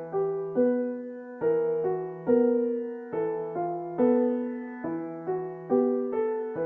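Background music: a slow, repeating piano or electric-piano melody, single notes about two a second, each ringing out over a held low bass note.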